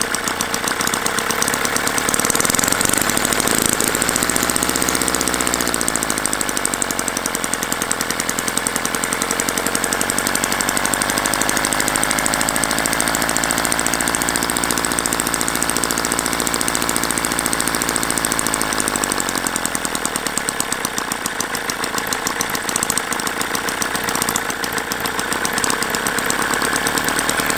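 Small Upshur opposed-twin model internal-combustion engine running on Coleman fuel, a fast steady beat whose speed rises and falls several times.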